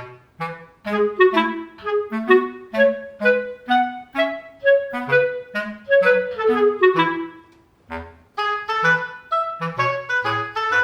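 Light instrumental background music: a bouncy melody of short, quickly fading notes over a bass line, with a brief pause about two-thirds of the way through.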